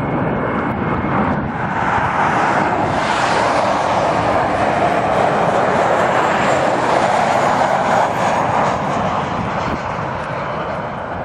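Jet airliner passing close by: a loud rushing engine noise that builds over the first couple of seconds, holds through the middle with a faint high whine, and eases off near the end.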